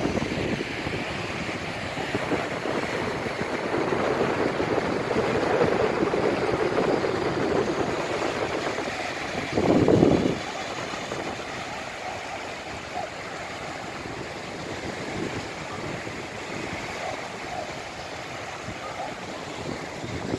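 Small waves breaking and washing up on a sandy beach, a steady surf hiss, with wind buffeting the microphone. A short, louder burst comes about ten seconds in.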